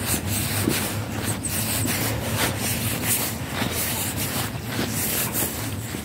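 Rubbing and wind noise on a handheld phone's microphone as the person walks, with regular footfalls about twice a second.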